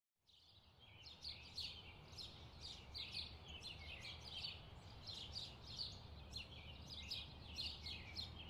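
Small songbirds chirping and twittering, a rapid run of short, high, falling notes that fades in just after the start, over a faint low rumble.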